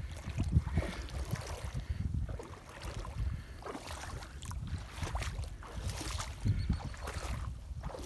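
Wind buffeting the microphone: an uneven low rumble that swells and drops in gusts.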